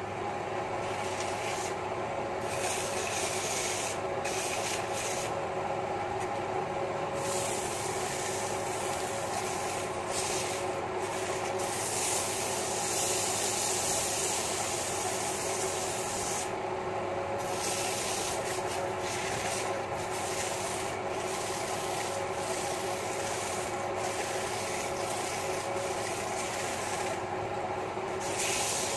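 Sandpaper held by hand against a large wooden stool blank spinning on a wood lathe: a steady hissing rub over the lathe's motor hum. The hiss thins out briefly several times.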